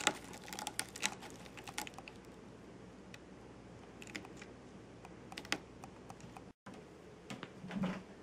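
Cat clawing a sisal-rope scratching post: a quick run of sharp raspy scratches, densest in the first two seconds, then sparser. A few louder knocks come near the end.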